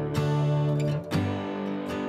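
Background music: acoustic guitar strumming sustained chords, with a fresh strum shortly after the start and another about a second in.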